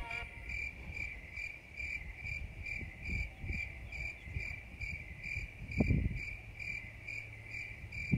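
An insect chirping steadily outdoors, a high pulsing note repeating about two to three times a second, over a low rumble with a few soft knocks, the loudest about six seconds in.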